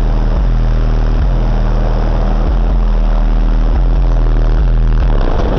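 Very loud, bass-heavy music from a car audio system's two 12-inch Pioneer Premier TS-W3002SPL subwoofers. The deep bass notes step to a new pitch every second or so.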